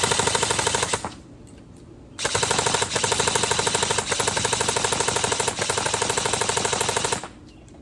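Krytac Trident Mk2 CRB airsoft electric gun (AEG) with a Gate Titan firing in very fast strings on its binary trigger, shooting once on each pull and once on each release, so the rapid gearbox cycling and shots run together. One string stops about a second in, and a longer one runs from about two seconds to about seven.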